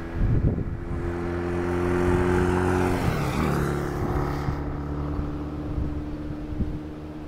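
A motor passing close by: a steady engine drone that swells, drops in pitch about three seconds in as it goes past, then fades slowly.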